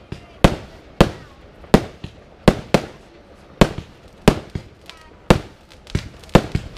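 Aerial fireworks bursting: a steady run of sharp bangs, about one to two a second, each trailing off in a short echo.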